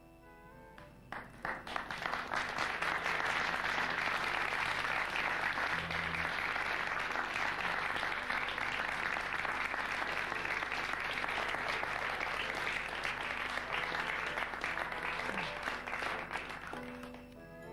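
Studio audience applauding. It starts with a few scattered claps about a second in, swells quickly into full, steady applause, and dies away near the end.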